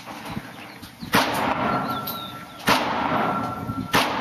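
Three revolver shots from a Ruger LCR firing .38 Special rounds, about a second and a half apart, each trailing off in a lingering echo.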